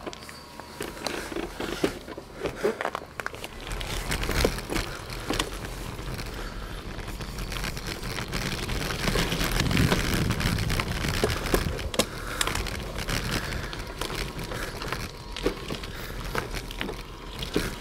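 Wind buffeting the microphone of a camera on a moving bicycle, with tyre noise on a coarse chip-seal road and many sharp rattling clicks. The rumble swells a few seconds in and is strongest around the middle.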